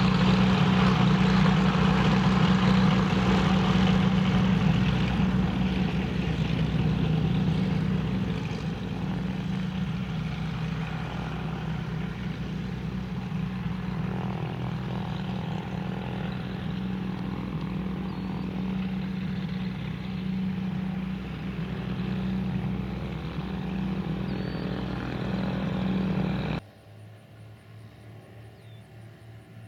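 Cessna 421's twin piston engines and propellers running at low power as it taxis, a steady low drone that eases slightly after several seconds. Near the end the sound drops suddenly to a faint hum.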